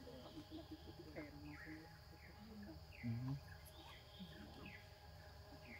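Steady high-pitched insect drone with many short, quick chirps scattered through it, and faint voices that rise briefly about three seconds in.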